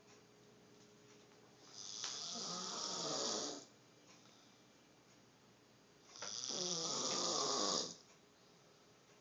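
Snoring: two long snores about four seconds apart, one starting about two seconds in and the next about six seconds in, each lasting nearly two seconds.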